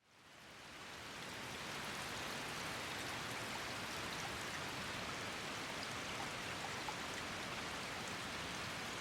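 Light rain falling as a steady hiss, with faint scattered ticks of single drops; it fades in over the first couple of seconds.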